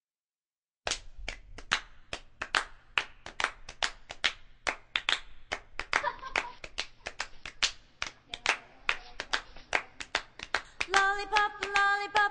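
Rhythmic hand claps, about three to four a second, opening a pop song, with group singing coming in near the end.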